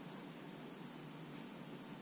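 Faint, steady, high-pitched drone of distant cicadas in summer heat, unbroken throughout, over a low background rumble.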